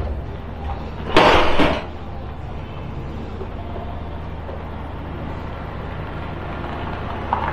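A steady low engine hum, with one short, loud burst of hissing noise about a second in.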